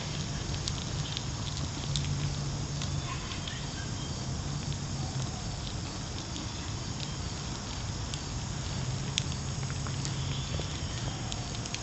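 Charcoal burning in a small grill: faint scattered crackles and pops over a steady outdoor background noise, with a low hum that comes and goes.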